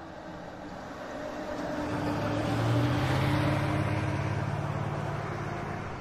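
A car driving past: engine and tyre noise grow louder to a peak about three seconds in, then fade away.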